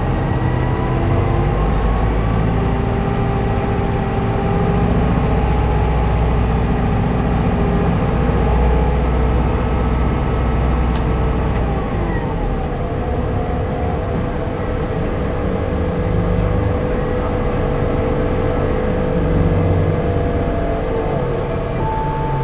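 City bus under way, its engine running as a low drone with a whine that rises slowly in pitch, drops sharply about twelve seconds in, then holds steady.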